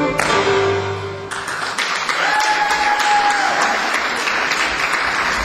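A piece of music ends on a final held note that dies away, and audience applause breaks out about a second and a half in and carries on. A single held high tone sounds above the clapping for about a second and a half.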